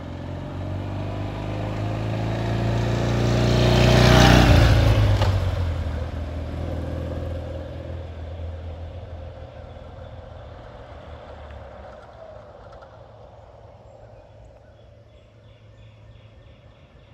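1969 BMW R60/2's air-cooled flat-twin engine on a ride-by: it grows louder as the motorcycle approaches, passes about four seconds in with a drop in pitch, then fades steadily as it rides away.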